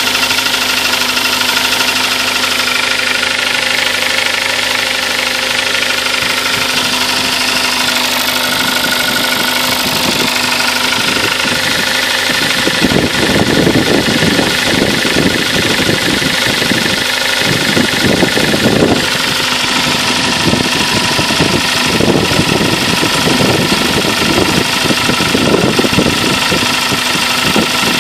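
Kia Sportage engine running with a knock in it. About halfway through, the sound turns heavier and more uneven in the low end.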